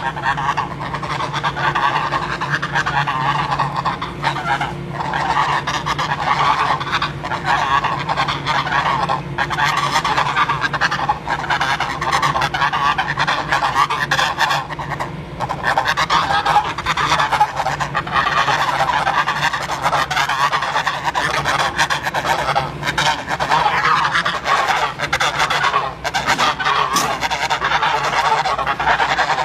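A flock of domestic geese honking continuously, many calls overlapping without a break.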